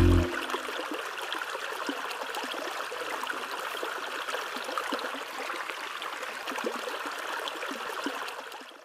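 Shallow stream running over grass and stones, a steady trickling and babbling of water that fades out near the end.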